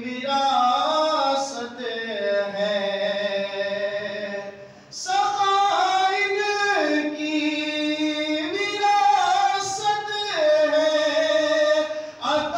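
A man singing a manqabat, Urdu devotional verse, unaccompanied, in long drawn-out notes that glide from pitch to pitch, with a short pause for breath about five seconds in.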